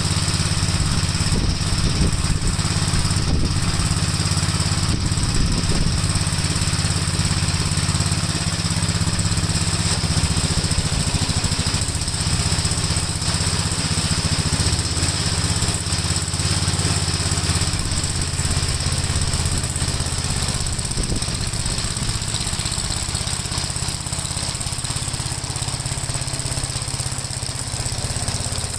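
Gravely walk-behind tractor's engine running steadily under load while driving a sickle bar mower, easing off slightly near the end.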